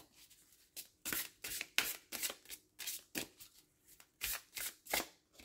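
A deck of gilt-edged oracle cards being hand-shuffled overhand: a quick, uneven run of short swishes and slaps, about three a second.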